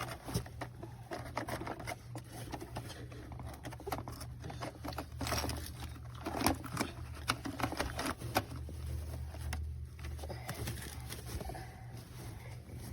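Irregular plastic clicks and knocks of a robot vacuum being handled by hand, over a steady low hum.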